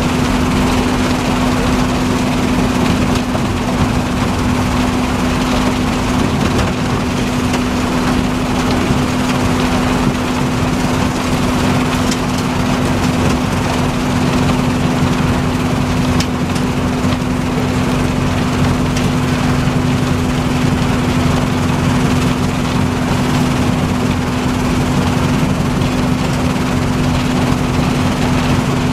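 Rubble Master RM 100GO! mobile impact crusher and its screening plant running under load while crushing asphalt: a loud, constant machine drone with a steady low hum.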